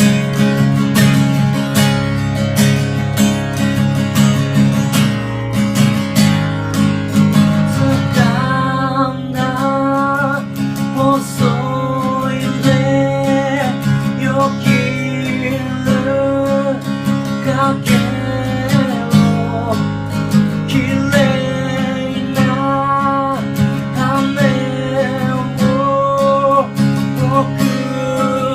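Acoustic guitar strummed steadily in a regular rhythm. From about eight seconds in, a singing voice joins over it.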